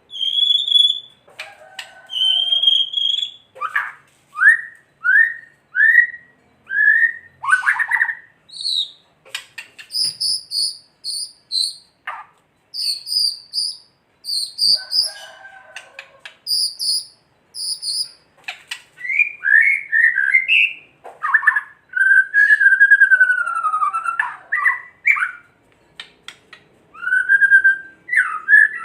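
White-rumped shama (murai batu) singing a loud, varied song: clear whistles and slurred notes, runs of quick repeated high notes, and dry rapid clicking rattles, the 'kretekan' call.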